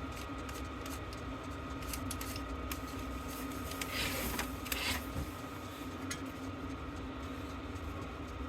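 A small electric motor running steadily, with two brief scrapes about four and five seconds in.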